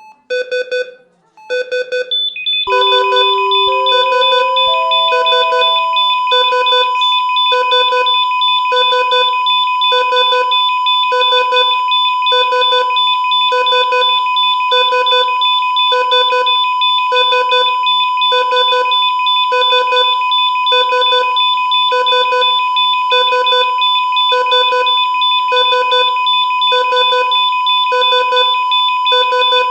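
Bedside patient monitor beeping at a steady heart-rate pace, a little slower than once a second. About three seconds in, a continuous high-pitched alarm tone joins the beeps, along with a short rising three-note alarm chime.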